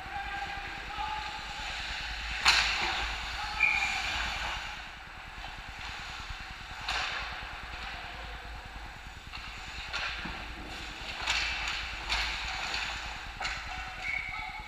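Ice hockey play in a rink: about six sharp clacks of sticks and puck over the steady hiss of the rink, with a few short shouts from players.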